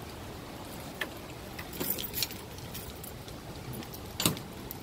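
Steady wind and rain noise of a tropical storm, with a few sharp taps: one about a second in, a pair around two seconds, and a louder one near the end.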